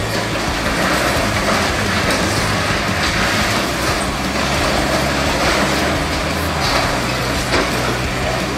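Caterpillar 345B hydraulic excavator's diesel engine running under load with a steady low drone, while the building it tears into crunches and clatters as brick, timber and sheet metal break and fall.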